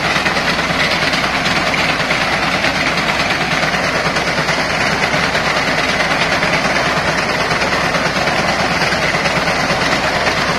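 Tractor engine running under load with the clatter of a front-mounted reaper's cutter bar cutting standing wheat: a loud, steady mechanical noise.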